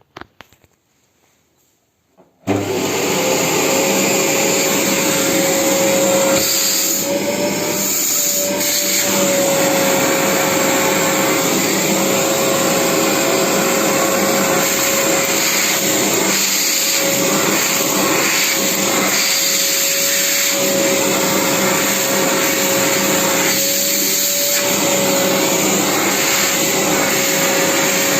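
Vacuum cleaner switched on about two and a half seconds in, then running steadily with a constant whine over its motor noise. A few faint taps come just before it starts.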